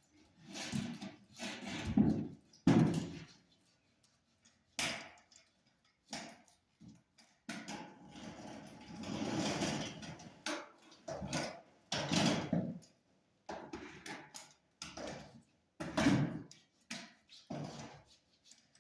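Irregular knocks, bumps and thuds of things being handled and moved, the loudest about two to three seconds in, with a longer scraping stretch about eight to ten seconds in.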